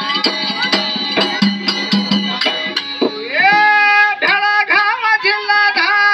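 Gigi folk song accompaniment: a frame drum beaten in quick strokes over sustained instrumental tones, then about three seconds in a man's voice enters with a long, rising, held sung note, the drum strokes carrying on beneath it.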